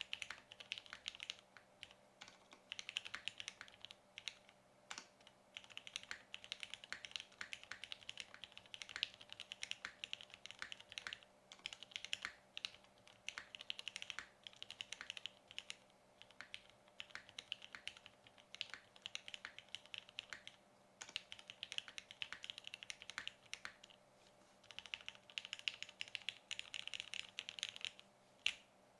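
Typing on a KFE OG R1 custom mechanical keyboard with broken-in, lubed and filmed Cherry MX Black Hyperglide linear switches on a polycarbonate plate, GMK keycaps and no dampening foam. Quick runs of keystrokes are broken by short pauses.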